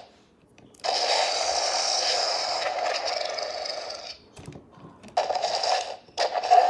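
Mattel Sound Strike Sinoceratops toy playing electronic dinosaur calls, set off by moving its tail. There is one long call of about three seconds, then two shorter calls near the end.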